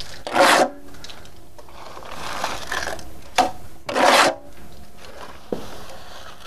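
Plastering trowel scraping wet stucco as it is spread and feathered onto an arch patch: two loud scrapes, about half a second in and about four seconds in, with softer scraping and a light click or two between them.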